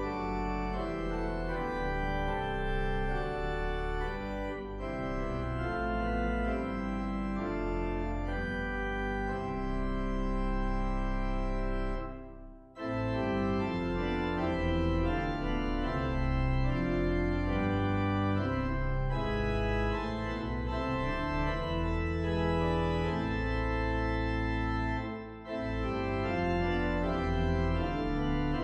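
Organ music playing slow, sustained chords, with a short break about halfway through and another near the end.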